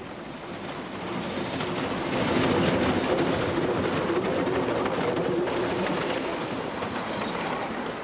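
Narrow-gauge steam train passing close by, its locomotive and carriages rattling over the rails. The sound swells to its loudest about two to three seconds in and fades away near the end.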